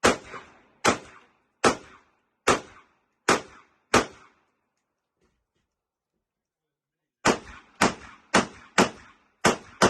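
Rifle shots fired during an IPSC rifle stage: a string of six shots at a steady pace, a pause of about three seconds, then a quicker string of six more.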